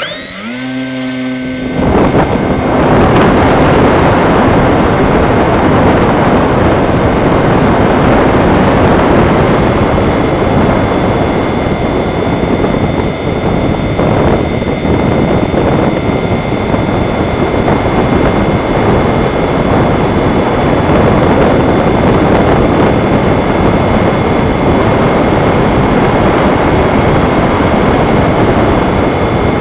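Electric motor and propeller of a foam HobbyKing Fox RC model plane spinning up over the first couple of seconds, then running steadily with a high whine. Heavy wind noise on the onboard microphone runs under it.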